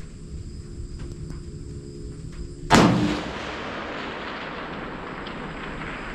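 A single rifle shot about three seconds in, followed by a long rolling echo that slowly fades.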